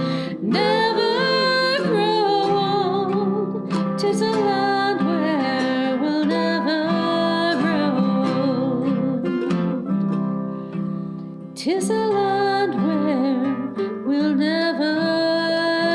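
A song: a singing voice over plucked acoustic guitar.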